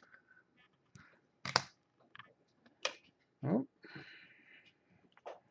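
Clear plastic trading-card holders and cards being handled on a tabletop: a few separate sharp plastic clicks and taps, the loudest about one and a half seconds in, with a short pitched sound about three and a half seconds in and a light rustle after it.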